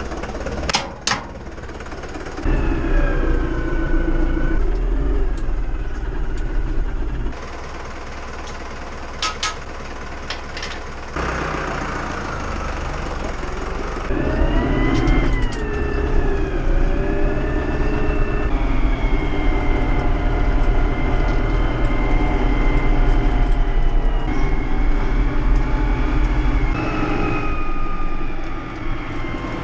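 Farm tractor engines running under load, with machinery whine that rises and falls in pitch. The sound changes abruptly several times.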